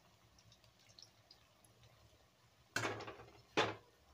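Batter-coated cauliflower pieces deep-frying in a kadai of oil, a faint crackling and ticking of the bubbling oil. Near the end two loud knocks cut in, a little under a second apart, each dying away quickly.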